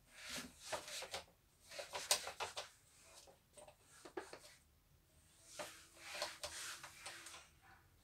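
Handheld eraser wiping a whiteboard: faint dry rubbing swishes in several separate bouts of strokes, with short pauses between them.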